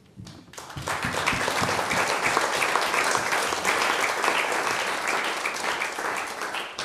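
Audience applauding, a dense patter of many hands clapping that swells in about half a second in and ends near the end.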